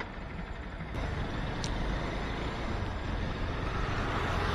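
Steady wind and road noise of a two-wheeler being ridden at speed, with a vehicle hum underneath. It gets louder about a second in.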